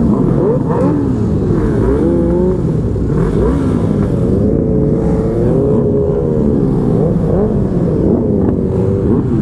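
Several sport-motorcycle engines running together at low speed, their pitches rising and falling at once as the riders work their throttles.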